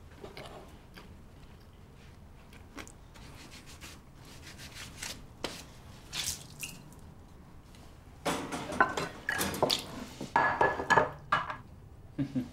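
Dishes and cutlery being handled: scattered light clicks and knocks, then about eight seconds in a busy stretch of clattering and clinking lasting around three seconds, with a brief ring of crockery.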